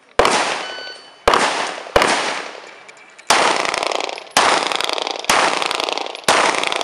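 Seven shots from a semi-automatic handgun, fired at uneven intervals of roughly a second. Each shot is followed by a long echo that dies away.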